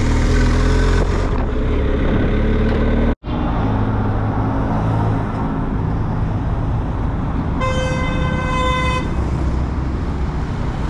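Motorcycle riding noise, engine and wind, that cuts off abruptly about three seconds in. It is followed by steady engine and traffic noise while stopped in traffic, and a vehicle horn honks once, a single steady note of about a second and a half, about two-thirds of the way through.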